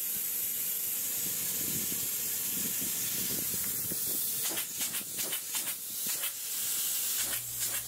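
High-pressure polyurea spray gun hissing as it sprays the coating. A steady hiss at first, breaking into short, uneven spurts from about four and a half seconds in.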